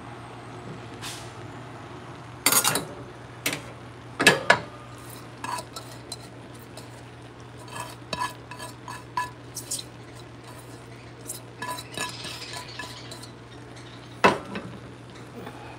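A metal slotted spoon knocking and scraping against a stainless steel pot while parboiled rice is spooned in to layer a biryani: a few sharp knocks and many lighter ringing taps. A steady low hum runs underneath.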